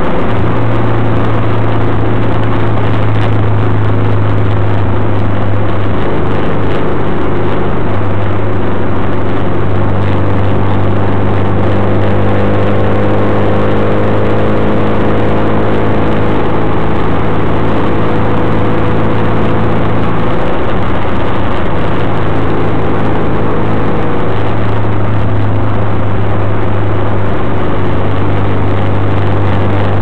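Triumph Spitfire's four-cylinder engine running at a steady cruise, its note holding nearly constant pitch, over steady road noise.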